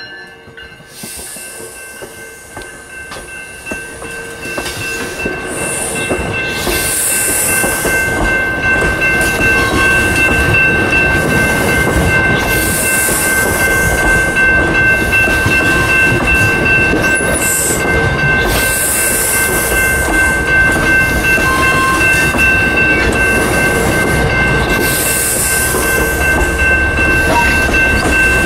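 Bilevel passenger train cars rolling past at close range, a steady rumble and clatter of wheels on rail that builds over the first several seconds as the train draws alongside, with bursts of high hiss every few seconds. A grade-crossing signal bell rings on steadily through the passage.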